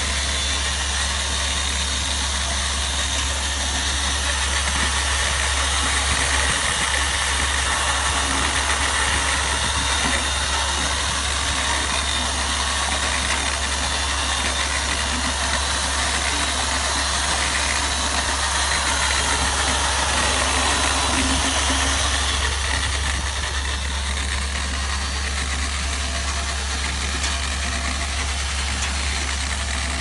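Corded electric drill with a paddle mixer running steadily, stirring grey slurry in a plastic bucket, a continuous motor whine.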